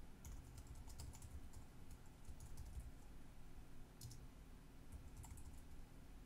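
Faint typing on a computer keyboard: several quick runs of key clicks with short pauses between them, over a low steady hum.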